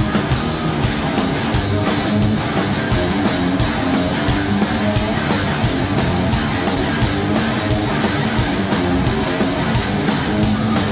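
Live hard rock band playing loud distorted electric guitar over bass and drums, in an instrumental stretch without singing.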